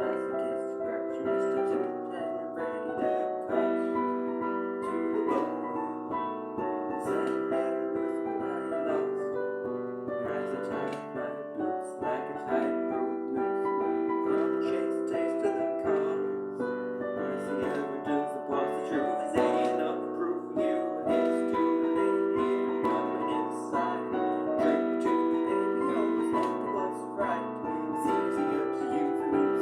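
Piano playing without pause, a flowing run of notes and chords.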